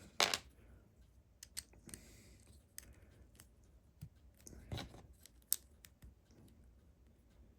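LEGO plastic bricks being handled and pressed together: scattered faint clicks and taps.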